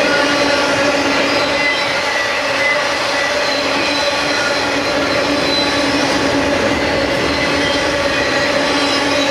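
Intermodal freight train of trailers on flatcars rolling past at close range: a steady rumble and rattle of wheels on rail, with thin steady squealing tones from the wheels on the curved track.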